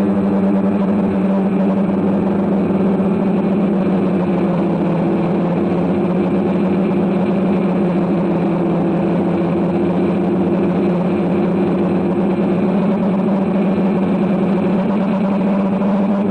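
DJI quadcopter drone's motors and propellers buzzing steadily in flight, picked up by its own on-board camera: one constant low hum with overtones above it.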